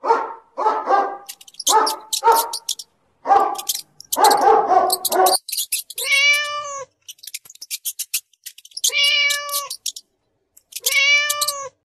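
Cat sound effects: a run of short, rough cat cries, then three drawn-out meows a few seconds apart, with fast clicking in between.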